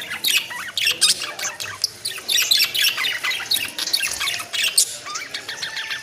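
Budgerigars chattering: a dense run of quick chirps, warbles and squawks, busiest about halfway through.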